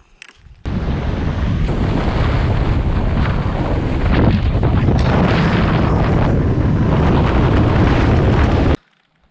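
Loud wind rushing over the microphone of a camera on a moving scooter. It cuts in suddenly just under a second in and stops abruptly near the end.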